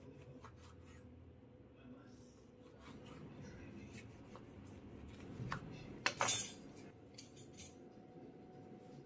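Chef's knife slicing through squeezed orange peels onto a wooden cutting board: scattered soft taps and cuts, with a louder clatter about six seconds in.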